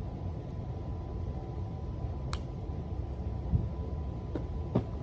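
Steady low background rumble with a faint steady tone, broken by a few faint clicks about two seconds in and near the end.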